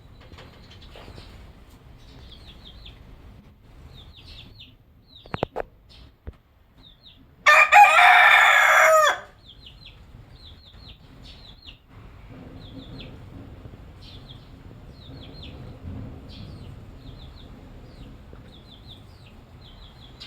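A rooster crows once, loud and full, for about two seconds starting about seven seconds in, after a few short clucks. Faint high chirping repeats throughout.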